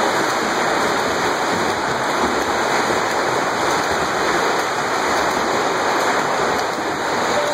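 Steady splashing and churning of water from several swimmers swimming front crawl in a pool.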